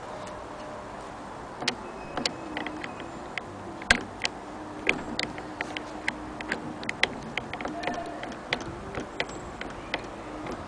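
Irregular light clicks and ticks from the hand-crank mechanism and handwheel of a 1902 Singer 48K sewing machine being handled, with one sharper click about four seconds in.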